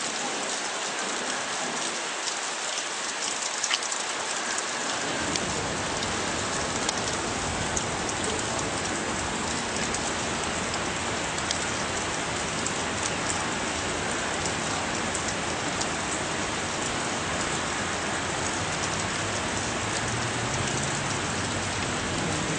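Heavy, steady rain hissing down, with many small drop ticks. A low rumble joins about five seconds in.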